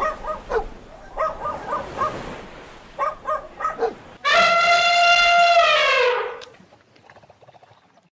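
A dog giving a series of short barks, then one long howl of about two seconds that drops in pitch as it ends.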